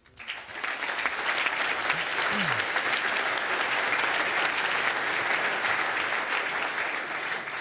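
Audience applauding: dense clapping that swells up within the first second, holds steady, and dies away near the end.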